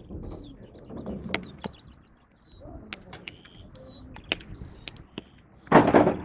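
Birds chirping and calling outdoors: short, high, curving chirps throughout, with a few clicks and a low rumble beneath. A loud burst of noise comes near the end.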